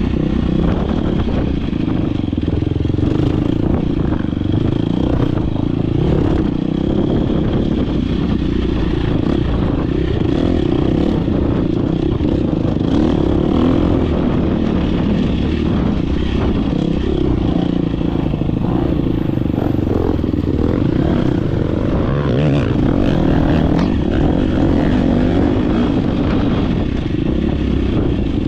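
Dirt bike engine running hard from the rider's onboard camera, its pitch rising and falling with the throttle, with frequent short knocks from the bike working over rough ground.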